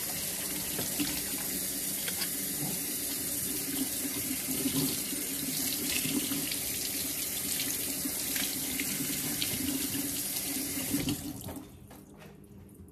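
Kitchen faucet running into a sink while hands are washed under it, with small spatters of water over a steady hiss. The tap is shut off suddenly about eleven seconds in.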